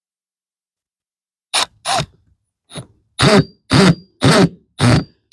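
Impact driver driving a screw into a hinge on a wooden raised bed in a series of short trigger bursts, about two a second, starting about a second and a half in.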